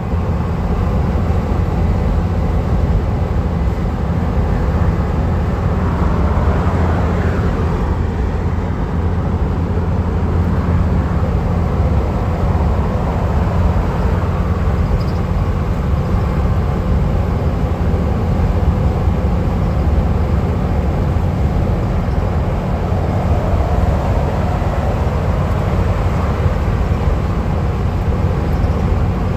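Steady low rumble of a van's engine and tyres cruising at highway speed, heard from inside the vehicle.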